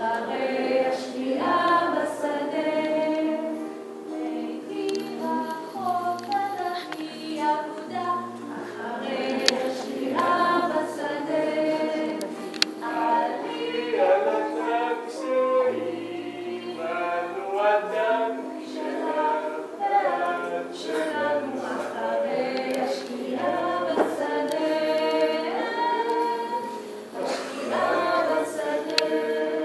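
A woman singing a song live into a handheld microphone, with other voices singing along and an acoustic guitar.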